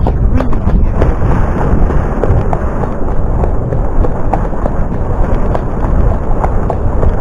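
Heavy wind buffeting and rumble on a helmet-mounted action camera's microphone as the horse moves along a dirt path, with scattered light clicks from the hooves.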